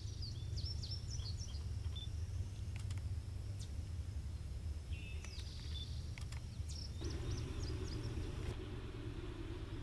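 Birds chirping over a steady low rumble. About seven seconds in, the steady drone of a distant diesel freight train's engines comes in as the train approaches.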